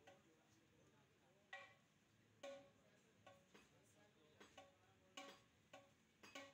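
Faint, irregular clinks and taps of lead-acid battery plates being handled and set down on stacks, about ten in all, each with a short ring.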